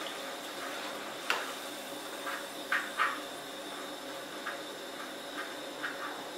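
Potato pieces frying in hot oil, a steady sizzle, with a sharp clink of a metal slotted spoon about a second in and a few short light taps as the spoon lifts pieces out.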